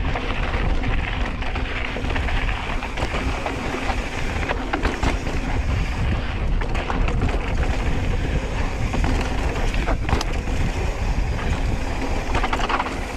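Mountain bike riding a dirt trail: steady rush of wind on the microphone and tyre noise, with scattered clicks and knocks from the bike rattling over the ground.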